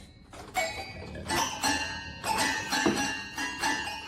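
Light music with bell-like notes struck every half second or so, each ringing on.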